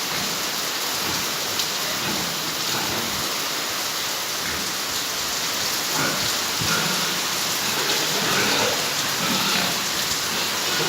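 Steady hiss of rain falling on a surface, with a few faint short higher sounds from about six seconds in.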